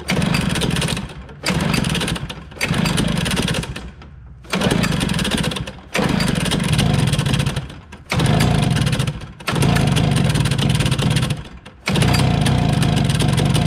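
1992 Arctic Cat Kitty Cat snowmobile engine on its first run after a carburettor cleaning and float adjustment: it runs in surges of a second or two that drop away and pick up again several times, then keeps running steadily near the end.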